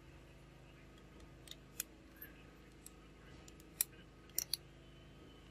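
Sharp plastic clicks as a Nokia 110 phone's housing is snapped together around its circuit board: a few light clicks, the loudest a little under four seconds in, then a quick pair just after. A faint steady hum runs underneath.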